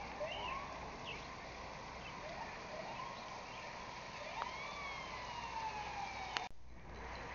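Emergency vehicle siren wailing in the distance, winding up in several quick rises and then falling slowly in pitch. A sharp click and a brief dropout come near the end.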